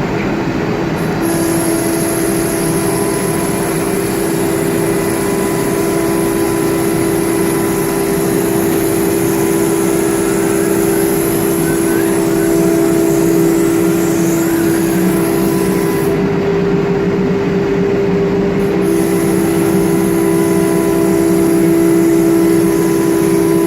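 BCAM CNC router running, a loud steady machine whine with several held tones; a high hiss cuts out for about three seconds past the middle and then returns.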